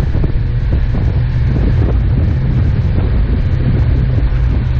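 Off-road 4x4 driving on a snow-covered road, heard from a camera on the vehicle: a steady low engine and road rumble with scattered small knocks, and wind on the microphone.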